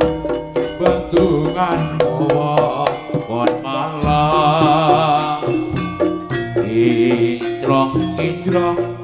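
Live Javanese gamelan music for a jaranan sentherewe dance: kendang-style drums beating rapid strokes over gongs and bronze metallophones, with a melodic line that wavers with vibrato about four seconds in.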